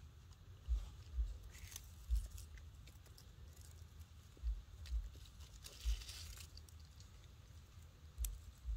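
Baby macaque gnawing and mouthing a thin branch, making faint small clicks and crunches, with a brief rustle of dry leaves about six seconds in. Several dull low thumps at uneven intervals are the loudest sounds.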